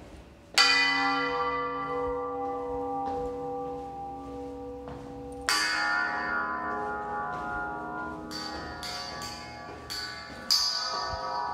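Deep bell tones struck and left to ring out slowly. One strike comes about half a second in and another about five seconds in, then a quicker run of strikes from about eight seconds, the loudest near the end.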